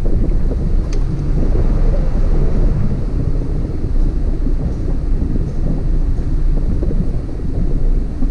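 Hummer H2 driving along a rough dirt trail: a steady low rumble of engine and running gear, largely covered by wind buffeting on the microphone outside the vehicle. A faint click about a second in.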